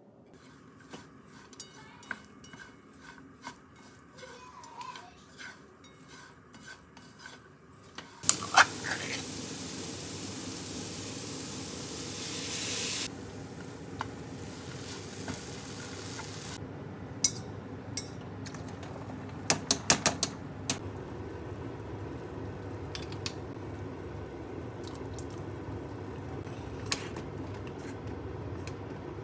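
Shredded carrots frying in oil in a frying pan: a loud sizzle starts suddenly about eight seconds in and settles into a steady frying sound. Wooden chopsticks stir the pan and click against it, with a quick run of clicks about two-thirds of the way through.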